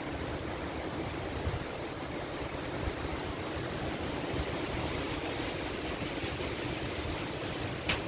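Severe thunderstorm wind blowing hard through trees as a steady rushing noise, with a rumble of gusts buffeting the microphone. A short sharp click comes near the end.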